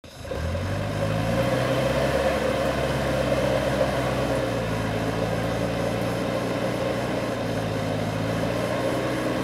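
A small truck's engine running steadily under load as the truck works through deep mud, its pitch shifting slightly a few times.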